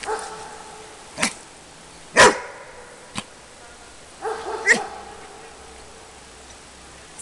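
Labrador retriever barking in single short barks about a second apart, the loudest about two seconds in, during a bark-on-cue training exercise.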